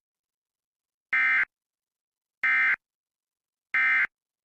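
Emergency Alert System end-of-message tones: three short, identical bursts of digital data tones, about a second and a quarter apart, marking the end of a special marine warning broadcast.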